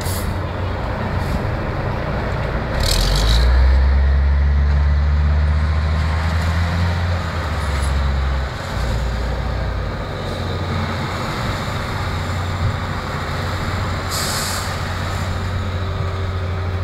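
Airport fire-crash tender's diesel engine running hard as the truck drives past and pumps water through its roof monitor; the engine note steps up about three seconds in and drops back about eight seconds in. Two short hisses, about three seconds in and again about fourteen seconds in.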